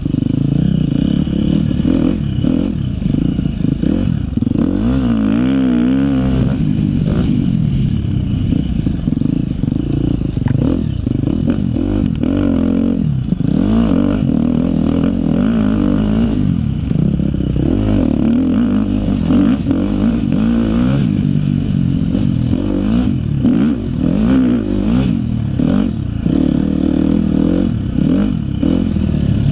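2013 KTM 250 XC-F's four-stroke single-cylinder dirt bike engine revving up and down continuously as the bike is ridden hard on a motocross track, with frequent clatter and knocks from the bike over the terrain.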